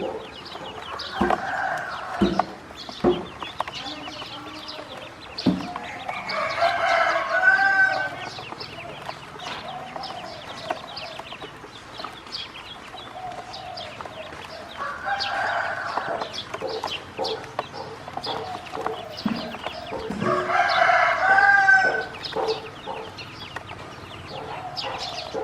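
A rooster crowing twice, about fourteen seconds apart, with shorter clucking calls from chickens in between and a steady scatter of small clicks.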